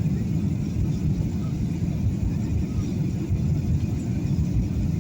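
Passenger-jet cabin noise: a steady low rumble of the engines and airflow, heard from inside the cabin.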